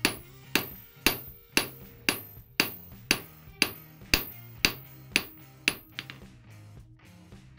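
Hand hammer striking a red-hot knife blade on an anvil in steady blows about two a second, each with a short metallic ring, as the blade is forged; the blows stop about six seconds in.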